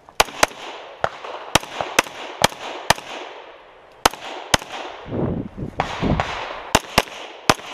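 A .45 ACP single-stack pistol firing a USPSA course of fire: about a dozen sharp shots with echoing tails, some in quick pairs about a quarter second apart and others spaced half a second or more. There is a low, muffled rumbling noise for about a second between strings past the middle.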